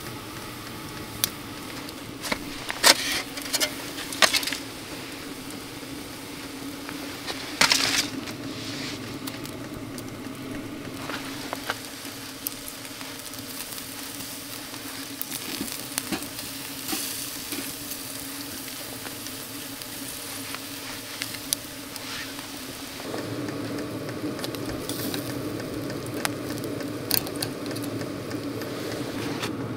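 Food sizzling in a pan on a camp stove, with scattered sharp clicks and knocks of a utensil against the pan. Near the end a low steady hum grows louder underneath.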